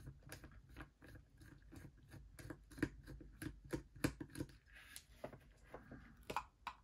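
Faint, irregular small clicks and crunches of a hand screwdriver backing screws out of a Soundbot SB510 shower speaker's plastic housing. Near the end the plastic shell is handled as it comes apart.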